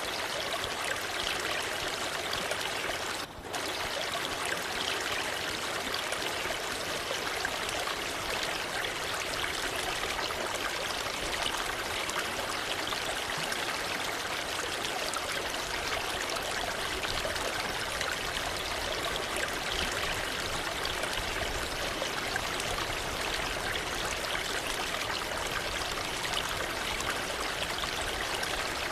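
Waterfall running water: a steady, even rush of splashing water, with a brief dip in level about three seconds in.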